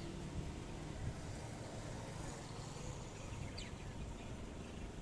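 Steady low rumble of background noise, with a few faint, short bird chirps about three and a half seconds in.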